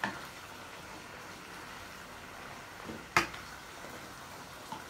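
Chicken, oyster mushrooms and carrots sizzling in a wok while being stir-fried, with the spatula knocking against the pan right at the start and again, louder, about three seconds in.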